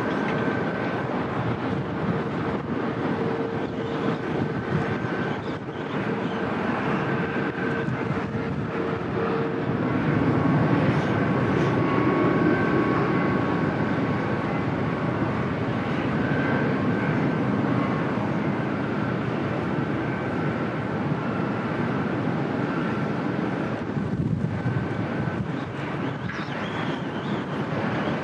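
Airliner jet engines: a steady rushing noise with faint engine whine tones, growing a little louder about ten seconds in.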